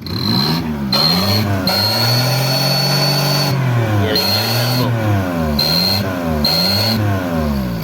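Maruti 800's three-cylinder petrol engine revved in repeated quick blips, with one longer held rev about two seconds in. A turbo whistle fitted in the exhaust silencer gives a high steady whistle on each rev, dropping out as the revs fall.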